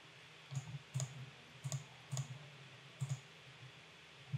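A computer mouse clicking about six times at uneven intervals, faint and sharp.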